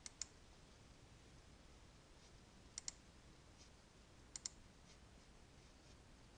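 Computer mouse button clicking over faint room hiss: three quick double clicks, about two seconds apart.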